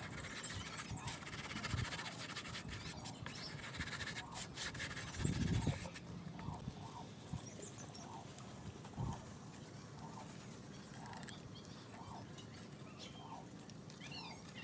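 Hands rubbing and pressing sawdust into the glued joints of a wooden tabletop: a dry, scratchy rustle with many small clicks, and a louder low thump about five seconds in. Then it goes quieter, with a faint soft sound repeating about twice a second and a few high chirps near the end.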